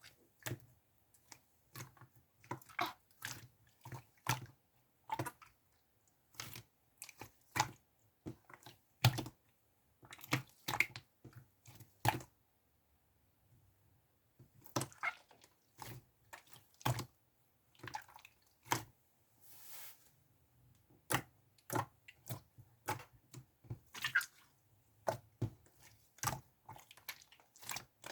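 Two-layer slime being squeezed and pressed by hand, giving irregular clusters of short wet clicks and pops with a brief lull around halfway.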